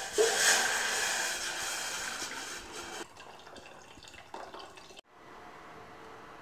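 Water poured from a jug into a stainless steel pot, a splashing stream that is loudest for the first three seconds, then softer, stopping about five seconds in; a faint steady hiss follows.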